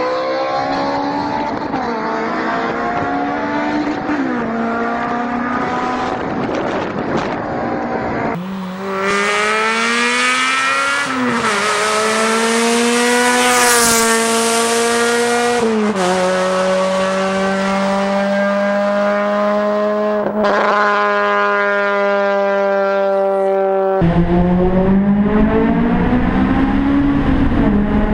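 Honda VTEC engines revving hard at high rpm, in several spliced clips that change abruptly about 8, 16 and 24 seconds in. The pitch rises and falls with acceleration and gear changes, then holds at a steady high note for several seconds.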